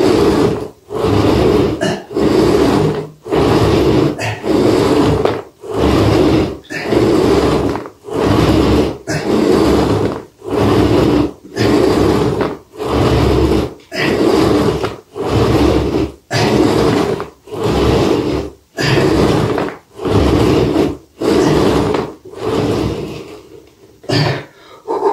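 Ab wheel rolling on a wooden floor, rumbling out and back in steady repeated strokes, about one a second, with brief pauses at each turn.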